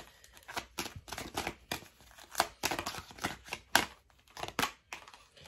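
Tarot cards handled and laid out on a desktop: a run of short, irregular flicks and taps.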